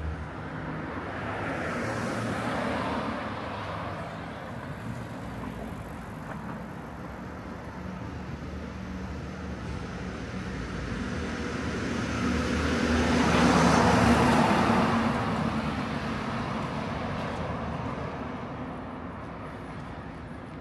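Cars passing on a city street over steady traffic rumble: one swells and fades about two seconds in, and a louder one passes past the middle.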